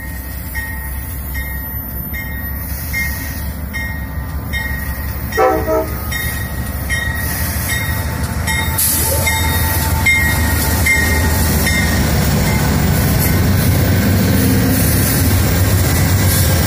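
Amtrak GE P42DC Genesis diesel locomotive arriving and drawing alongside. A bell rings steadily about twice a second until about twelve seconds in, with a short horn toot about five seconds in. The engine and wheel rumble grows louder as the locomotive passes close.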